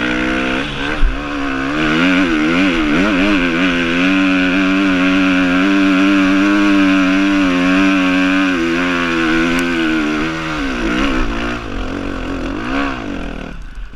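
Suzuki dirt bike engine revving up and down, then held at high, steady revs under load on a steep climb, before easing off with a couple of throttle blips and dropping away near the end. A thump about a second in.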